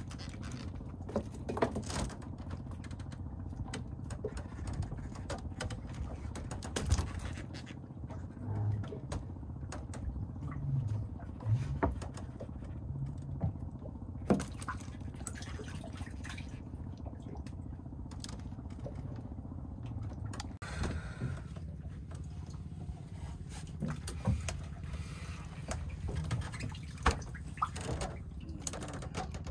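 Boat engine running at a steady low rumble, with scattered short knocks and clicks over it.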